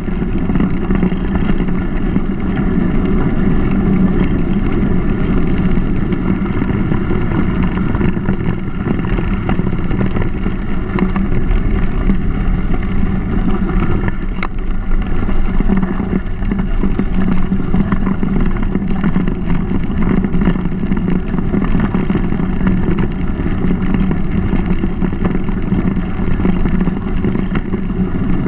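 Steady rolling and wind noise from a mountain bike in motion, heard through a bike-mounted GoPro: tyres running over the trail, with scattered small rattles and clicks from the bike.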